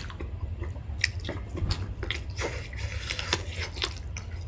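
Close-miked eating sounds: irregular wet clicks, smacks and squishes of a mouth chewing food, over a low steady hum.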